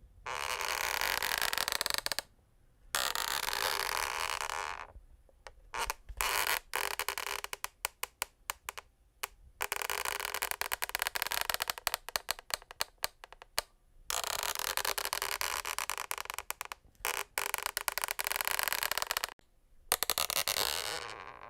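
Scraping on a wooden parquet floor. Long continuous strokes alternate with short pauses, and in the middle comes a stretch of rapid, short, choppy scratches.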